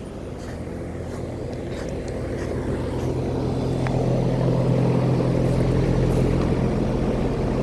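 Central air conditioner outdoor condensing units running: a steady hum of compressor and condenser fan that grows gradually louder.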